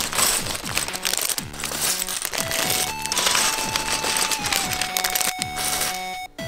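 Clear plastic bags of LEGO parts crinkling as they are opened, with plastic bricks clattering as they are tipped out onto a wooden table. Background music plays alongside.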